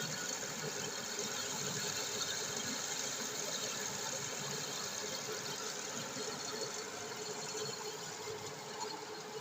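Lathe running steadily: a continuous machine hum with a steady whine and hiss, easing off slightly near the end.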